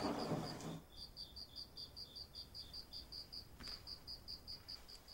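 Crickets chirping steadily in two interleaved high-pitched series, about five chirps a second, as night-time ambience. A brief breathy sound comes in the first second.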